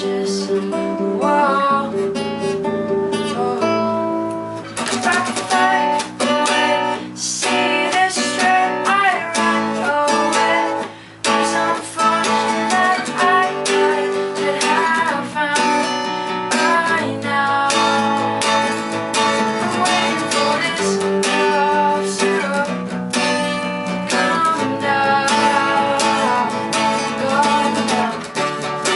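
Music: a cover of a pop-rock song led by a strummed acoustic guitar, with chords changing every second or two.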